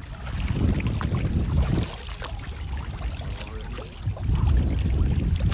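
Wind buffeting the microphone in an open canoe, with water lapping and splashing under wooden paddle strokes. The wind gets stronger about four seconds in.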